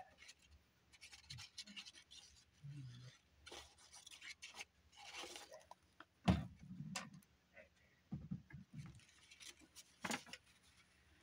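Faint paper rustling, scraping and sliding as a glued book page is handled and pressed into a journal by hand, with a single sharp knock on the table about six seconds in.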